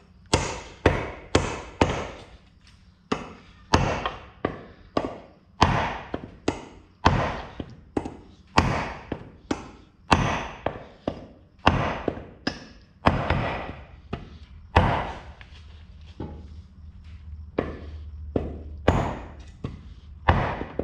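Repeated hammer blows driving a glued black walnut wedge into the kerf of a wooden axe handle, striking the wedge's end at about two blows a second, with a few short pauses. The wedge is nearly fully seated in the axe eye.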